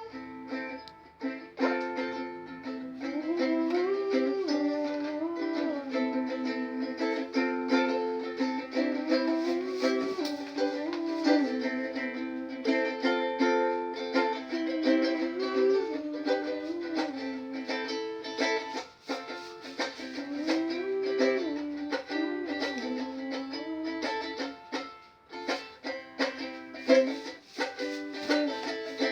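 Ukulele being strummed continuously, repeated chord strokes with a melody line moving over them.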